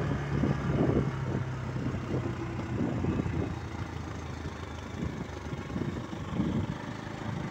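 A vehicle driving along a road: a steady low engine hum under a rumbling wind and road noise. The hum fades out about three seconds in.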